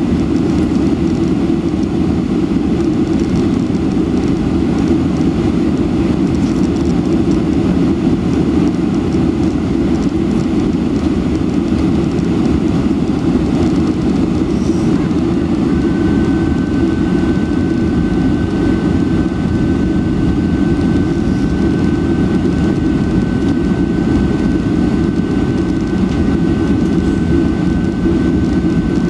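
Steady cabin rumble inside a Boeing 747-400 on approach: airflow and its four Rolls-Royce RB211 turbofans heard from a window seat over the wing, with flaps extended. A thin steady whine joins about halfway through and holds.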